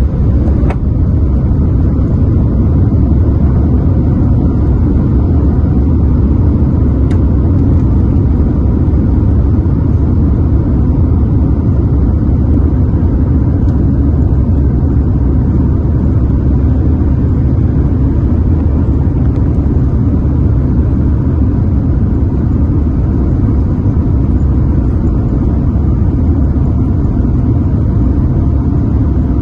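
Boeing 787-9 airliner taking off: a loud, steady low rumble of engines and airframe that swells at the start and then holds level.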